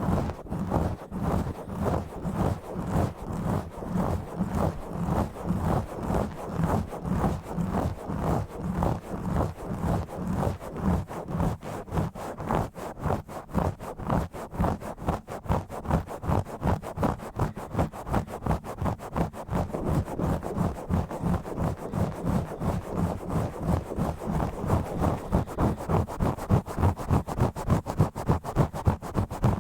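Fast, rough scratching and rubbing directly on a bare microphone, heard as a quick train of strokes, about three a second, with a deep rumble. The strokes grow a little stronger near the end.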